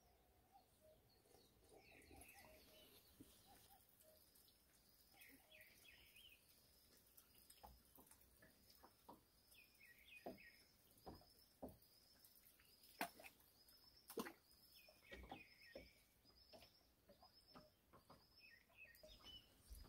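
Faint birdsong in the open: one bird repeats a short high chirp about twice a second while other birds give brief warbling calls. From about eight seconds in, scattered sharp clicks and knocks stand out above it.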